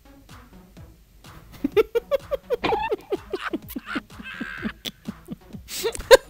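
A man laughing in a run of short, rhythmic bursts that begin about a second and a half in, with a breathy intake partway through.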